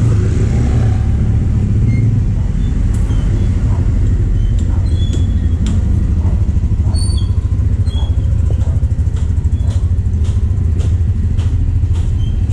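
Street ambience of motor scooters: one passes close right at the start over a steady low rumble of engines and traffic. From about four seconds in, the walker's footsteps tap on wet concrete about every half second to second, with a few short high chirps.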